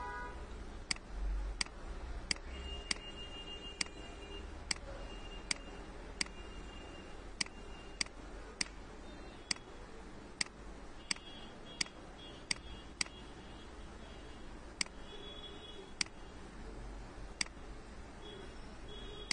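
Computer mouse button clicking repeatedly as Photoshop Smudge-tool strokes are clicked and dragged: about twenty sharp clicks, most under a second apart, with a short break about two-thirds through, over a faint steady hiss.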